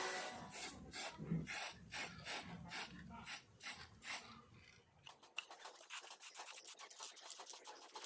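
Hand abrading strokes, filing or sanding, rasping back and forth at about three strokes a second. About five seconds in they turn into quicker, lighter, finer strokes.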